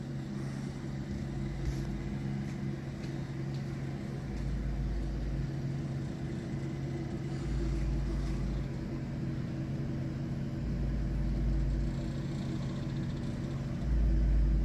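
Old Westinghouse Coca-Cola vending machine's refrigeration machinery running with a steady electrical hum, while a low rumble swells for about a second roughly every three seconds, loudest near the end.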